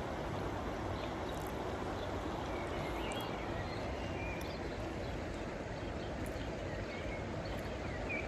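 Outdoor ambience: a steady, even background noise with faint, brief bird calls now and then.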